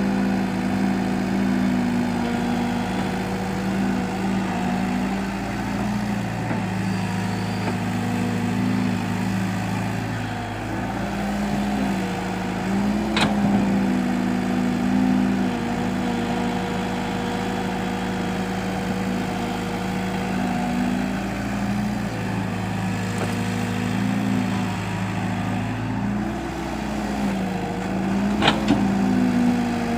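Excavator engine running steadily, its pitch stepping up and down every few seconds as the load changes. Two sharp knocks come through, about halfway and near the end.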